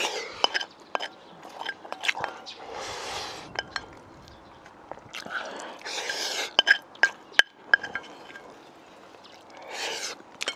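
Close-up eating sounds: a man slurping saucy spicy pork rib stew off a spoon in four long slurps, with wet chewing, lip smacks and sharp clinks of a metal spoon against a ceramic bowl in between.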